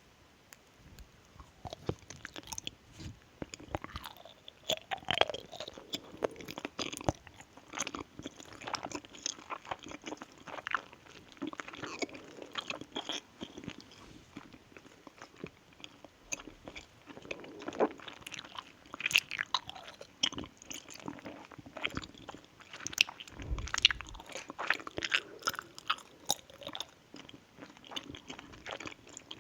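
Close-miked eating mouth sounds: a person biting and chewing something crunchy, with many irregular sharp crunches, clicks and wet mouth noises.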